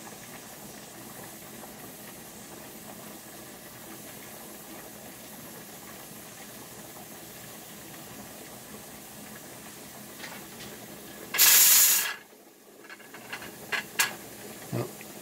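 Pressure canner hissing softly as steam leaks past its weighted pressure regulator while pressure builds to about 10 pounds, before the weight has started to rock. About eleven seconds in, a loud puff of steam vents for about half a second, followed by a few light metallic clicks as the weight is touched.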